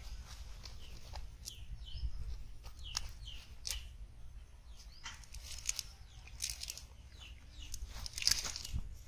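Fish flopping and thrashing on grass and dry leaves, in irregular bursts of rustling and slapping.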